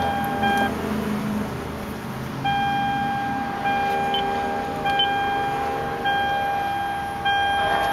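Lexus IS-F's electronic warning chime sounding long, evenly repeated beeps of about a second each at one steady pitch. There is a pause of about two seconds early on, after which the beeps resume. A low steady hum runs underneath.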